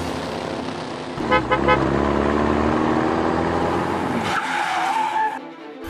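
Dubbed vehicle sound effects: an engine revving steadily higher, with three quick horn toots about a second in, then a short wavering tyre squeal near the end.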